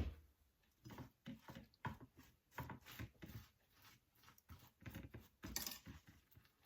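Faint, scattered taps and clinks of dishes and cutlery being handled.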